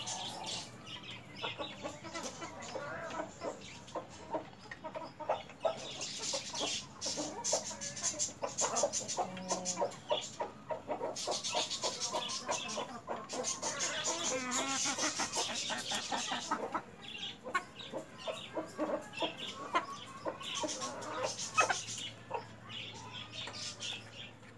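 Flock of domestic chickens clucking as they feed, with frequent sharp taps of pecking and a few stretches of hissy rustling.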